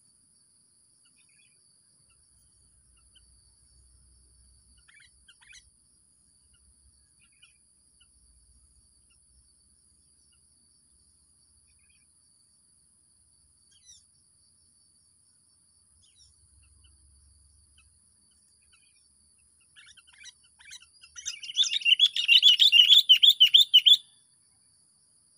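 A songbird in a tree gives a few faint, scattered calls, then about twenty seconds in bursts into a loud, rapid chattering song lasting a few seconds.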